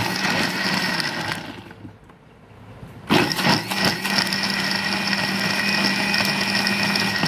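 Electric mixer grinder (mixie) grinding fried onion, tomato and spice masala into a paste. The motor runs, winds down about a second and a half in, then starts again about three seconds in and runs steadily.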